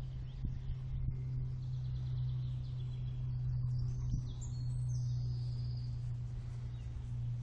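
Birds chirping and calling in woodland over a steady low hum and rumble of outdoor background noise.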